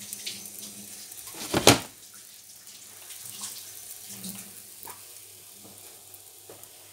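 Pancake batter frying in an oiled non-stick pan: a steady sizzle with small scattered crackles. A single loud thump comes about a second and a half in.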